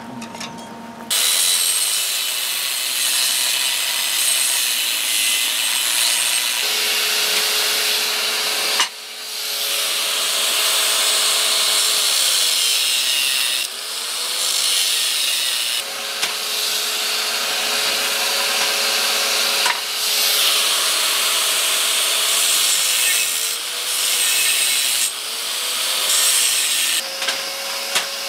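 Angle grinder with a thin cut-off wheel cutting through perforated square steel tubing. It starts about a second in and runs in several passes with brief breaks, the motor's pitch sagging and recovering as the wheel bites into the steel.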